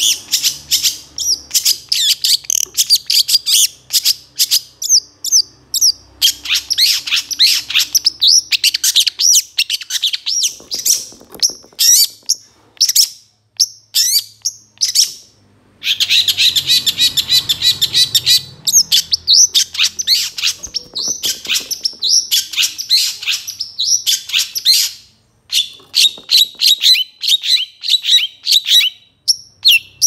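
Long-tailed shrike (cendet) singing a fast, varied song of short chirps and quick slurred notes full of mimicked phrases, in dense runs broken by brief pauses.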